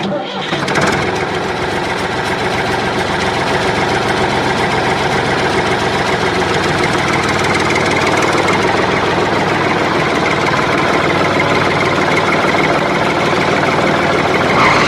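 An engine running steadily at idle with a rough, knocking rattle. It starts abruptly and keeps an even pitch throughout.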